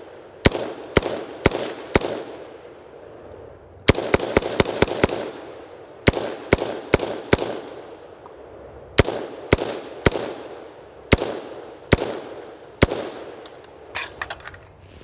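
A BCM AR-15 firing 5.56 rounds semi-automatically, about twenty shots, each with a trailing echo. It fires a slow string, then a rapid burst of about six shots around four seconds in, then more spaced shots, and a few lighter clicks near the end. The rifle is being fired uncleaned and unlubricated and keeps cycling.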